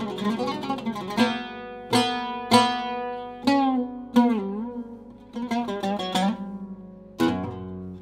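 A cedar-topped Syrian-style oud played solo with a plectrum: a quick run of notes, then single notes left to ring and die away, one sliding in pitch on the fretless neck. Another quick flurry follows, and a deep low note sounds near the end.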